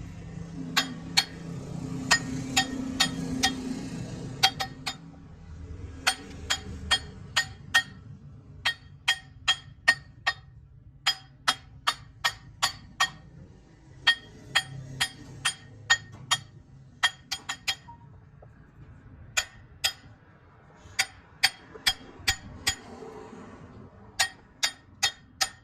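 Hammer blows on steel, sharp ringing clinks at about two to four a second in runs with short pauses, each ringing at the same pitch.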